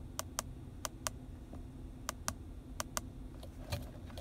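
Plastic keypad buttons on a handheld Topdon OBDCAN Elite scan tool clicking as the menu is scrolled down: four sharp double clicks in the first three seconds, then fainter clicks with a soft handling bump near the end.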